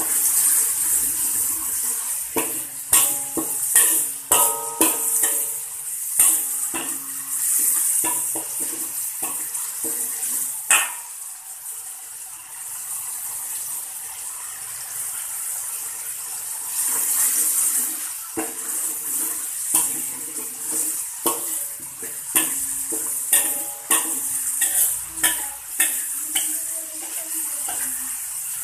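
Spice paste sizzling in hot oil in an aluminium wok, with a metal spatula scraping and clicking against the pan as the paste is stirred. The sizzle and stirring ease off for a few seconds around the middle, then pick up again.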